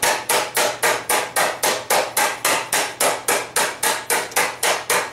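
Mallet blows on a hot steel disc laid over a dished wooden stump, about four strikes a second in an even, steady rhythm, each with a short ring. The steel is being dished into a frying-pan shape.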